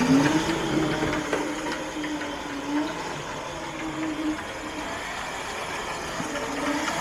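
Electric motor of a Razor Crazy Cart whining as it drives, its pitch rising and falling with speed and dropping out briefly now and then.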